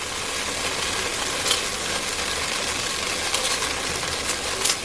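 Beef sizzling in hot oil in a Dutch oven, a steady frying hiss, with a few short clicks of a spoon against the pot as the browned pieces are lifted out.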